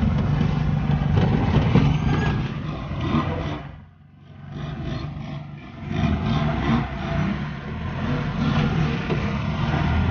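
Strong wind buffeting the microphone in gusts, with a deep rumble. It falls away to a brief lull about four seconds in, then gusts up again.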